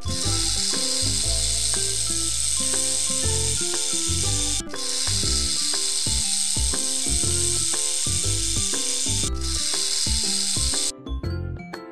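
A snake hissing: two long steady hisses with a brief break between them, the second cutting off abruptly. Light background music plays underneath.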